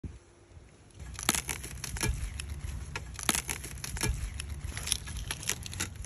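Dry grass and leafy plants crunching and rustling in irregular sharp crackles, starting about a second in.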